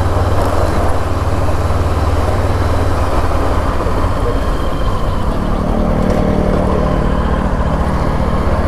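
Motorcycle engine running under way, with wind and road noise rushing over the bike-mounted camera's microphone. About five seconds in, a steadier pitched engine hum comes up over the noise.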